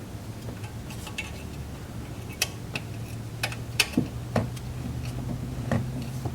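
Scattered small clicks and knocks, about eight, mostly in the second half, of parts and hands at work while a part is pushed into place and clipped on. A steady low hum runs underneath.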